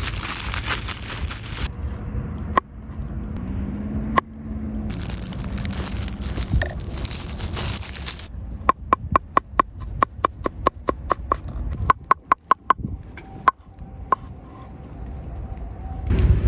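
Plastic bag crinkling as it is handled and opened, then a knife chopping green herbs on a wooden cutting board: a quick, even run of knocks, about five a second, each with a short metallic ring from the blade.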